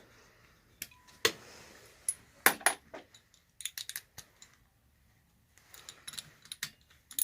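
Metal hand tools clinking and clattering against each other and against metal parts: a dozen or so sharp knocks and clinks with a short metallic ring, in loose clusters.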